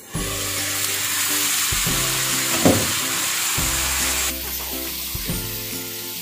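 Beef keema simmering in a frying pan, sizzling loudly once the glass lid comes off. The hiss drops about four seconds in, and the mince is stirred with a spatula near the end.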